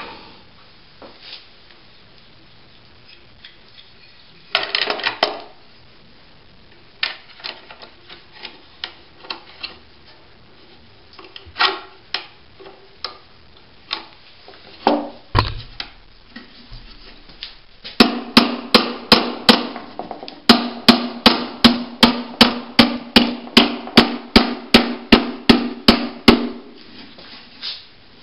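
Scattered knocks and clunks of handling tools and material, then a long run of steady hammer blows, about three a second, for roughly eight seconds in the second half, while building a heat vent frame.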